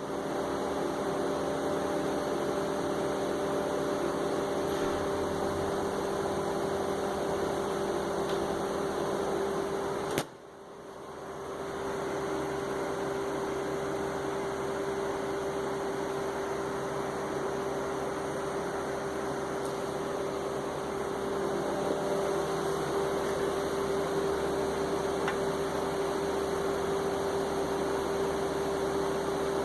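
2005 Honda Odyssey 3.5 L V6 running with a steady whine over a rushing noise. The engine is misfiring at the front middle cylinder, whose spark plug pulled right out of the head. The sound cuts out briefly about ten seconds in and then comes back.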